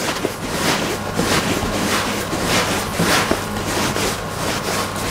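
Hands rolling bread dough back and forth on a floured wooden tabletop: a run of swishing rubbing strokes, about two to three a second.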